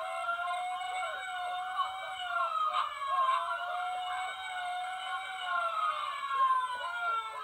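Recorded siren sound effect from the small built-in speaker of a Lemax Engine Co. No. 33 Christmas village fire station: several siren wails overlapping, slowly sliding up and down in pitch, thin and tinny with no low end.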